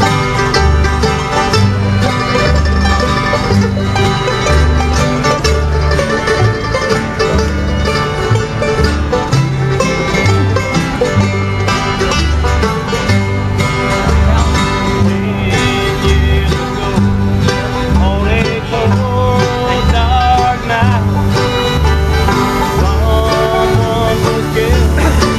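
A bluegrass band playing live, with banjo and guitar over a steady beat and a low bass line alternating between two notes.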